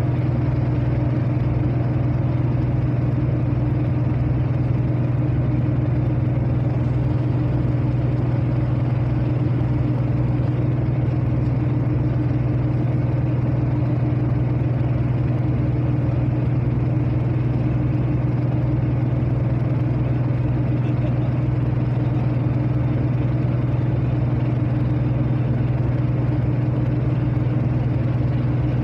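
Steady low drone of a ferry's engine heard from on board, unchanging in pitch and loudness.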